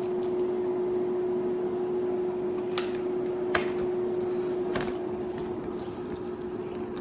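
A steady mechanical hum holding one constant pitch, with three short sharp clicks about a second apart in the middle.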